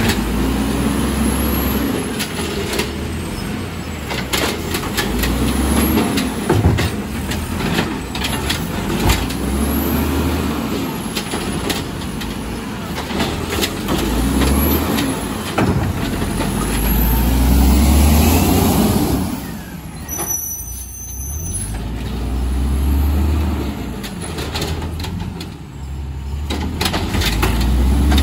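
Peterbilt automated side-loader garbage truck working the curb: its engine revs up and down over and over as the hydraulic arm grabs, lifts and dumps a green-waste cart. Sharp clanks and bangs of the cart and arm and hisses of air come through.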